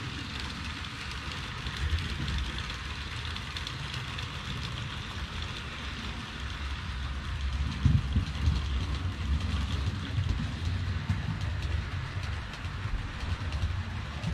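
Model trains running on a layout: a steady rattle of metal wheels on track over a low rumble, growing louder about eight seconds in.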